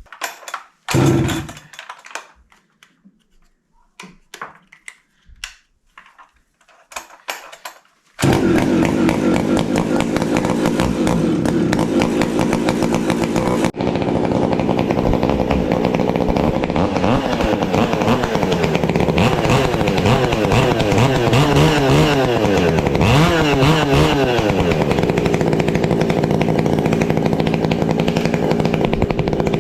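A few knocks and handling noises, then a Husqvarna 372-clone two-stroke chainsaw starts about eight seconds in and runs, revving up and down several times. It is a test run with the newly fitted 572 clutch cover, to check that nothing drags.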